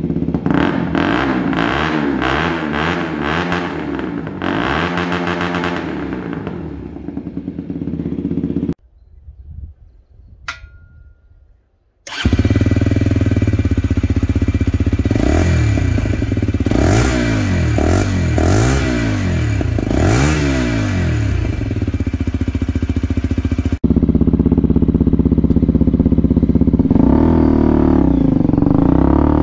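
125cc motorcycle engine blipped repeatedly from idle through a newly fitted aftermarket exhaust, the revs rising and falling. After a brief quiet break the revving resumes, and near the end the bike is running under way, the revs climbing.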